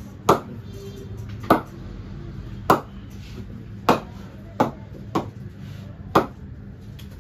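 Cricket ball bounced off the face of a BAS Player Edition cricket bat: seven sharp knocks about a second apart, two of them closer together late on. A ping test of how well the bat rebounds the ball.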